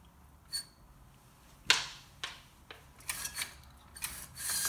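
Handling noise from a phone camera: a few sharp clicks and knocks, the loudest about two seconds in, then a light clattering near the end.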